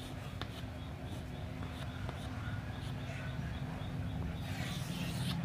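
Chalk tapping and scraping on a chalkboard while writing, with a few faint ticks and a longer scratchy stroke near the end, over a steady low hum.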